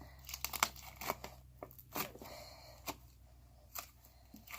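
Hard, putty-like slime being squeezed and pulled by hand, giving off irregular sharp clicks and crackles.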